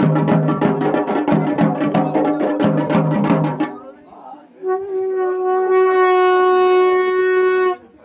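Drums beaten in a fast, even rhythm that stops about three and a half seconds in. After a short pause, a horn is blown in one long steady note of about three seconds, which cuts off near the end.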